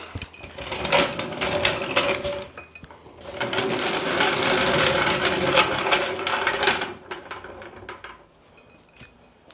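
An old jack being worked to raise a truck: rapid mechanical clicking and grinding in two runs, the second longer, dying away near the end.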